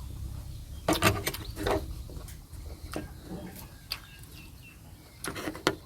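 A person eating close to the microphone: chewing and mouth smacks, with several short sharp clicks scattered through.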